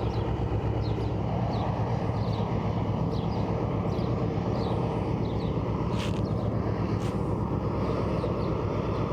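Freight train crossing a viaduct, its locomotive giving a steady low rumble, with faint high chirps over it.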